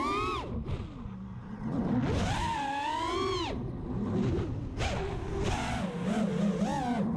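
Brushless motors and propellers of a 220mm FPV racing quadcopter with DYS Fire 2600kv motors whining in flight. The pitch rises and falls with the throttle, with a high punch about two seconds in that lasts about a second and a half.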